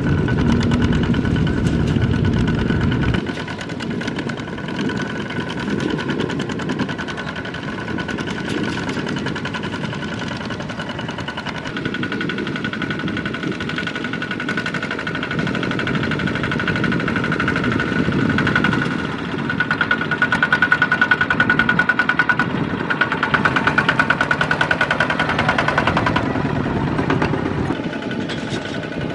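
Kubota two-wheel walking tractors' single-cylinder diesel engines running steadily with a fast, even chug. The sound changes about three seconds in and gets louder for several seconds near the end.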